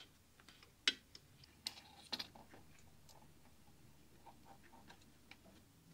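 Faint scattered clicks and ticks of insulated filament wire being threaded and twisted through the metal lugs of a valve socket, the sharpest about a second in and a couple more around two seconds in.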